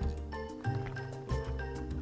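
Soft background music with a steady beat and bell-like mallet tones.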